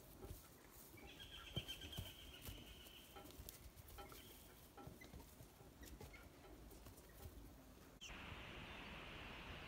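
Near silence: faint outdoor background with scattered soft clicks, a brief high trill a second or two in, and a steady faint hiss near the end.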